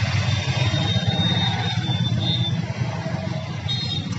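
A steady low rumble, of the kind an engine makes, runs in the background, with a faint thin high tone over it through the first half and briefly again near the end.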